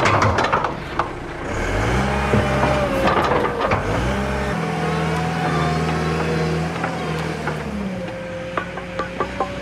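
Compact wheel loader's diesel engine running, revving up about a second and a half in, holding a steady higher pitch, then dropping back near the end. A few light clicks come just before the end.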